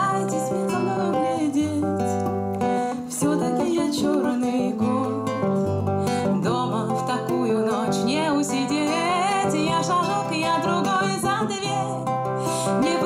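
A woman singing a Russian bard song while strumming an acoustic guitar, the voice carrying the melody over steady strummed chords.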